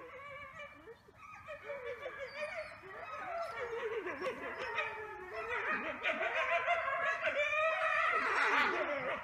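Red wolves howling in chorus: several wavering, overlapping howls that start about a second in and build in loudness.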